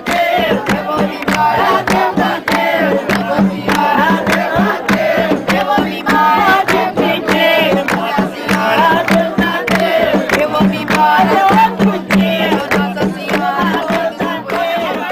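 A jongo song: several voices singing together over a fast, steady beat of hand drums.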